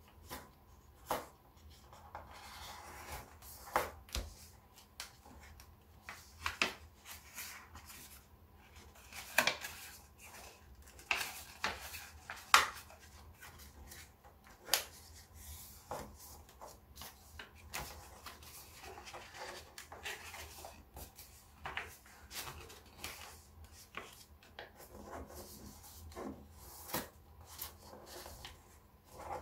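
Black origami paper being folded and creased by hand: soft, irregular crinkles and crackles as the sheet is handled and pressed flat, with a sharper crackle about halfway through.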